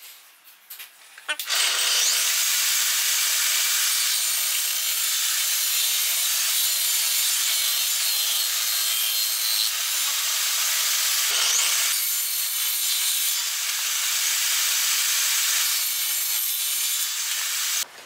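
Benchtop table saw ripping a wide wooden board: a loud, steady cutting noise that starts about a second and a half in, dips briefly a little past the middle, and stops abruptly near the end.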